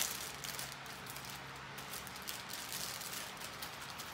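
Thin plastic packaging crinkling and rustling in the hands as a small gift is unwrapped, with a sharp crackle at the start.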